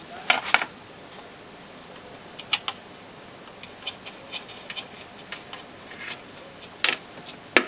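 Scattered small clicks and light taps of a coaxial jumper cable's screw-on connectors being handled and fitted by hand, with a few sharper clicks, the loudest near the end.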